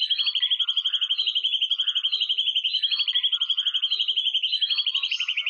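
Background soundtrack: a high tone pulsing rapidly and evenly, with short chirps about once a second.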